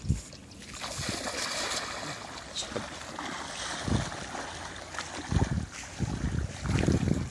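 Shallow muddy floodwater sloshing and splashing as a person wades through it, with several heavier splashes in the second half.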